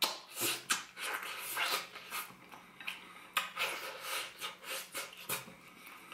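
Close-up eating sounds: lips smacking and sucking as meat is pulled off a chicken bone, with wet chewing, a run of short, sharp smacks and clicks.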